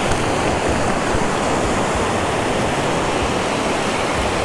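Steady rush of Gulf surf breaking and washing up the beach.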